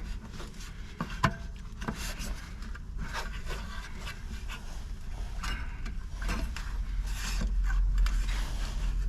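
Hands working metal retaining clips on a cast-iron stove door around its glass: irregular scraping, rubbing and small clicks of metal on metal. A low steady hum grows louder over the second half.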